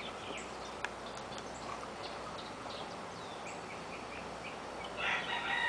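Quiet outdoor background with a few faint chirps, then about five seconds in a rooster starts crowing, a drawn-out call that carries on past the end.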